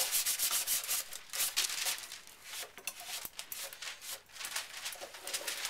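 A kitchen sponge with a scouring side rubbed back and forth over the plastic platform and display of a digital scale: quick, scratchy rubbing strokes, dense for the first couple of seconds, then sparser and fainter.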